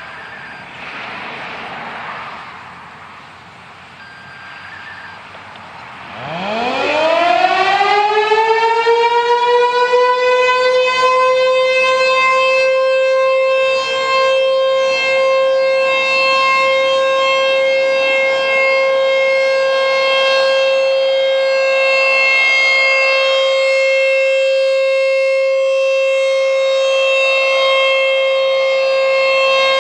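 American Signal T-128 outdoor warning siren starting up about six seconds in: its pitch rises quickly, then levels off into a steady loud tone that holds to the end. This is the county's monthly siren test.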